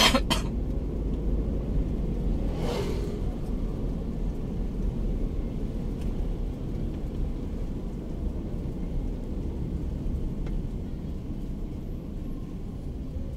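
Steady low rumble of engine and road noise inside a Daihatsu Terios cabin while driving, with a brief whoosh a few seconds in. The rumble gets gradually quieter.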